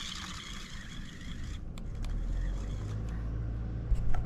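RC crawler pushing through long grass, the grass scratching and brushing against the car. From about halfway in there is a low rumble, and a sharp click comes at the very end.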